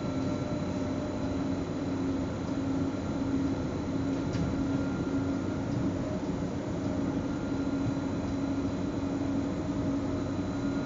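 Electric S-Bahn commuter train running steadily between stations, heard from inside the driver's cab: an even rolling rumble with a constant hum, and one faint click about four seconds in.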